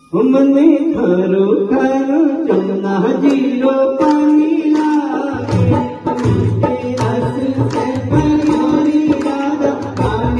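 A man singing a Hindi devotional bhajan with harmonium and hand-drum accompaniment. The music starts suddenly, and a low, rhythmic drum beat joins about five seconds in.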